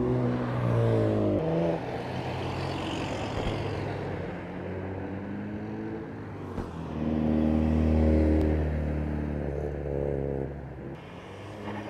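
Car engines on a road: a modified Citroën C1 hatchback driving off, its engine note fading within the first two seconds. Then a second car's engine grows louder as it comes up and passes, loudest a little past the middle, and fades again near the end.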